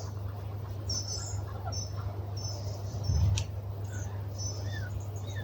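Small birds making many short, thin, high-pitched calls as they gather to roost in a hawthorn at dusk, some calls repeated in quick pairs. Under them runs a steady low hum, and a brief low thump comes about three seconds in.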